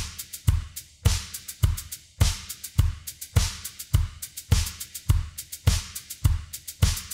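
Background music with a steady drum-kit beat: a bass drum a little under twice a second, with snare and hi-hat strokes between.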